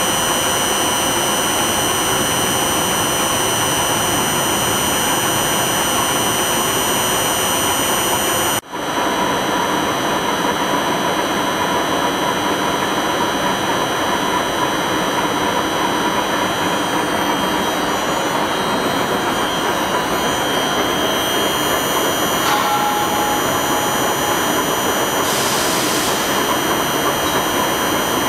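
Ryazan deep hole borer's headstock running with its spindle and large chuck turning: a steady machine whir with high steady tones. It breaks off for an instant about nine seconds in, then carries on.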